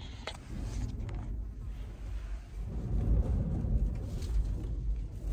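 Strong gusting wind from a dry microburst downdraft buffeting the microphone as a low, rough rumble, growing stronger about halfway through.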